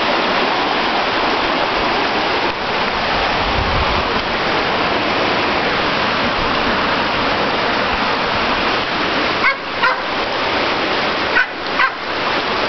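Steady hiss of rain and rushing floodwater. A dog barks briefly about nine and a half seconds in and again near the end.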